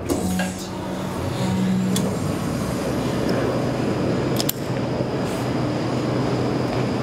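Steady metro-station background noise. Two short low buzzing tones sound near the start, and a sharp click about four and a half seconds in as the elevator call button is pressed.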